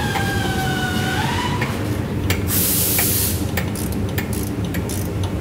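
Machine-shop noise: a pitched whine with overtones wavers and stops about a second and a half in, then a short sharp hiss of air about two and a half seconds in, with light metallic clicks of hand tools and a dial indicator being handled over a steady low machinery hum.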